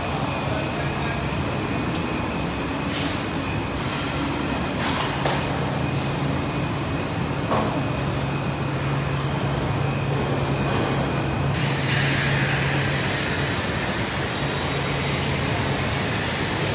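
Four-layer bubble wrap film machine running: a steady mechanical drone with a low hum and a faint high whine, with a few short hisses in the first half. About twelve seconds in, a louder hiss of air starts and keeps going.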